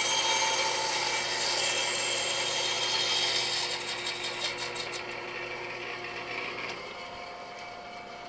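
JET bandsaw crosscutting a thin board: the blade hisses through the wood over the running motor, with the dust-collection vacuum on. The cutting noise fades in the second half as the cut finishes, leaving the machines running.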